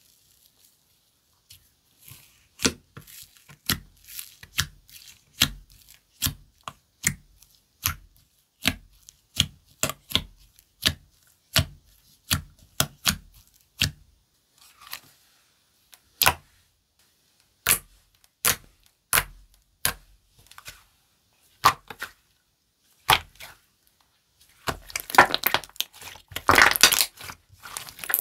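Slime being pressed and poked by hand, giving sharp, wet clicking pops about one or two a second. A denser stretch of crackling near the end.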